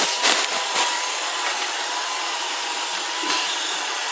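iRobot Roomba robot vacuum running in clean mode: a steady whirring hiss with a thin steady whine, and a few short knocks in the first second.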